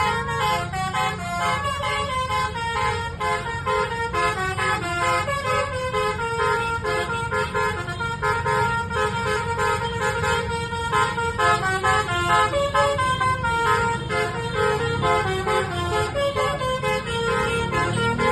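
Bus's Basuri telolet multi-tone horn playing a quick melody of short stepped notes, over a steady low rumble.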